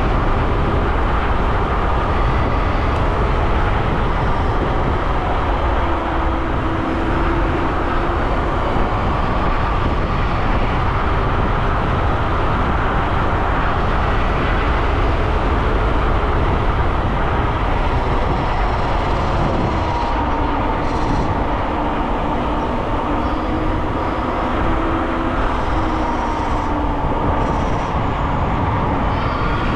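Dualtron X Limited electric scooter riding fast on asphalt: steady wind rush on the microphone and tyre noise, with the electric motors' whine drifting up and down in pitch as the speed changes.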